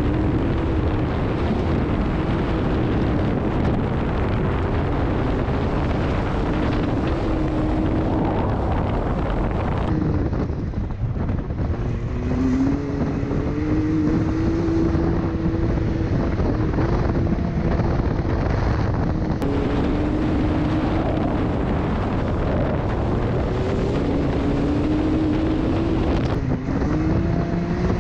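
Dirt bike engine running under throttle as it is ridden, with wind noise on the microphone. Its pitch holds fairly steady, falls away briefly about ten seconds in, then climbs again. It rises again twice near the end.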